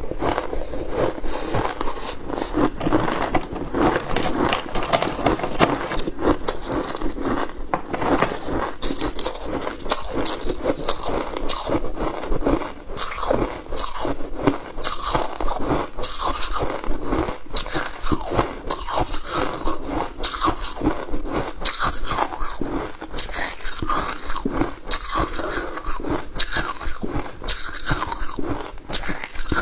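Hard ice being bitten and crunched between the teeth, close-miked: a dense, continuous run of sharp cracks and crunches.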